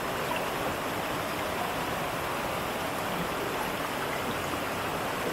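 Water running over and between rocks in a small forest stream, a steady, even rushing.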